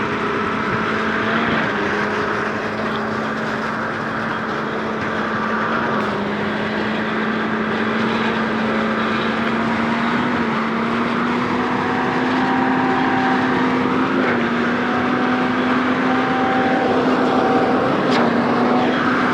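Diesel engine of a Zoomlion 46-metre truck-mounted concrete pump running steadily at high speed while pumping, its note dipping and recovering slightly every few seconds.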